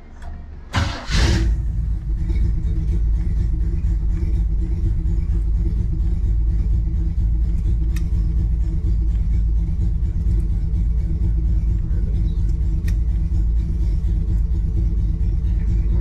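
1962 Chevrolet Impala's engine firing up about a second in, then idling steadily.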